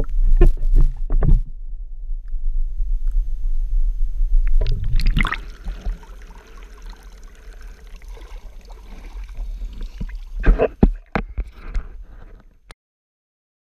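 Knocks and water sloshing from handling on a kayak, over a steady low rumble on the microphone, in three clusters; the sound cuts off abruptly near the end.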